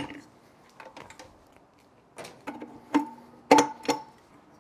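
Stainless steel parts of a Cabela's Carnivore meat grinder knocking and clicking as the grinder head and ring are fitted onto the motor housing: a series of separate metal clanks, some ringing briefly, the loudest about three and a half seconds in.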